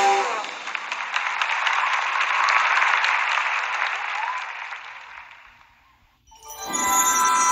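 A theatre audience applauding as the song ends, the applause fading away about five seconds in. Music starts up again near the end.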